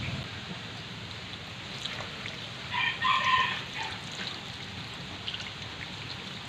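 A rooster crows once in the background, about three seconds in, over a steady faint low hum.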